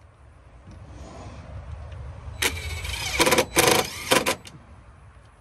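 Cordless impact driver driving a screw into a carpeted RV compartment panel, in four short bursts of hammering a little over halfway through.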